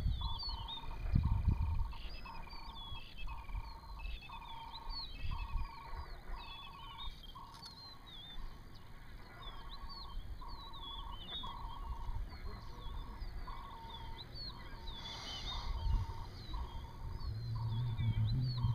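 Savanna birds calling: many short, quick chirps and whistles throughout, over a lower trilled call that repeats about once a second. A few low rumbles come near the start and again near the end.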